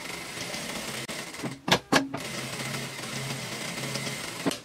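Industrial lockstitch sewing machine running steadily while stitching around the edge of a fabric piece. About two seconds in it pauses with two sharp clicks as the piece is turned at a corner, then runs on.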